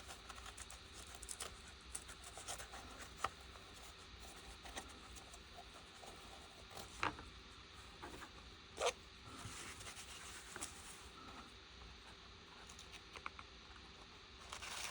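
Faint handling sounds of a small precision screwdriver set being packed into its nylon case: light scratching and rubbing with scattered small taps, and a couple of sharper clicks about seven and nine seconds in.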